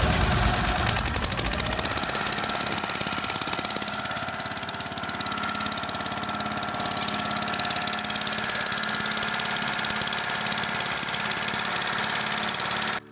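Small inboard engine of a wooden country boat running steadily under way, with a fast, even chugging, heard from on board right beside the engine.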